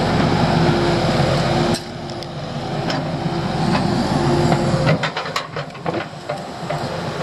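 Diesel construction machinery, a mini excavator and a wheel loader, running while grading dirt on a road bed. About five seconds in the engine noise drops and a series of short knocks and clicks follows.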